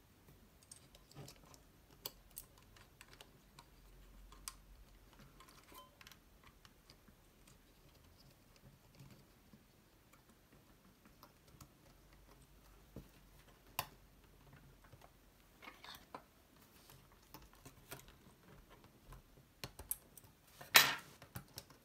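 Scattered light clicks and ticks of small plastic parts being handled and fitted into a Commodore Datasette's metal tape-transport chassis as the idler pulley mechanism is worked into place, with one sharper, louder click near the end.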